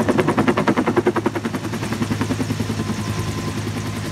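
Bell UH-1 Huey helicopter passing overhead just after releasing its water bucket, its two-bladed main rotor beating in a fast, even thump. The beat is strongest in the first two seconds, then eases into a steadier drone.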